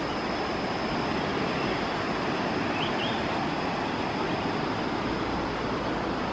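Steady rushing of a river flowing close by, with a couple of short faint chirps about three seconds in.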